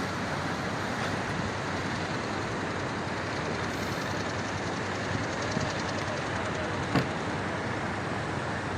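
Steady noise of a vehicle driving along the road, with one sharp knock about seven seconds in.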